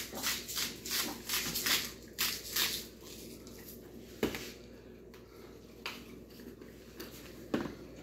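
Hand-twisted black pepper grinder grinding peppercorns, a rasping grind about four strokes a second that stops about three seconds in. A few light single knocks follow.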